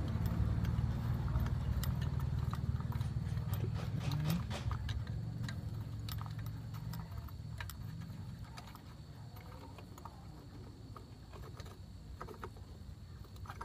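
Light metallic clicks and taps of steel studs and a puller plate being handled against an aluminium motorcycle crankcase, over a low engine rumble in the background that fades out around the middle.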